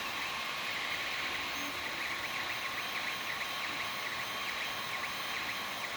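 Creality Ender-3 3D printer printing: its stepper motors whine in quick rising and falling chirps as the print head moves back and forth, over the steady hum of its fans.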